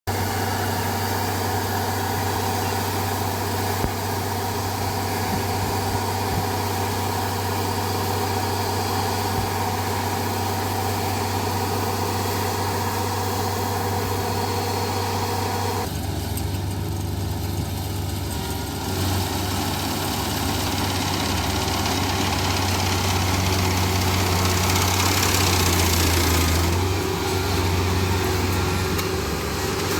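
Rice harvester's engine running steadily with a low hum. Its sound changes abruptly about halfway through and grows louder with added rushing noise later on.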